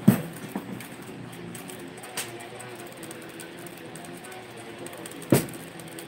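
Sharp knocks of something being handled close to the microphone: a loud one at the start, a softer tap about two seconds in and another knock about five seconds in, over faint steady low tones and room noise.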